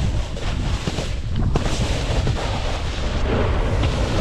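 Wind buffeting the microphone of a board-mounted action camera and the snowboard sliding and scraping over groomed snow during a fast downhill run: a loud, continuous rush with a heavy low rumble.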